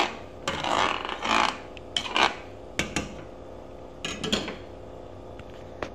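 A spoon scraping and stirring in a pot of soup: irregular rasping strokes, with a few sharp clicks of the spoon against the pot.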